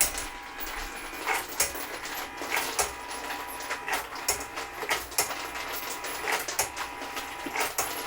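Hornady Lock-N-Load case feeder running with a steady hum, brass .223 cases clinking and clattering at irregular intervals as they are fed into the drop tube.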